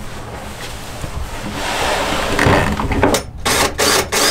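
Scraping, rubbing and knocking of handling noise, with no pitch to it. It gets louder about a second and a half in and breaks into short silent gaps near the end.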